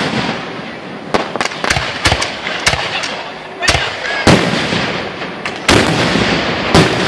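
Aerial fireworks shells bursting, a quick string of sharp bangs and crackles in the first three seconds, then several louder booms each trailing off in an echo.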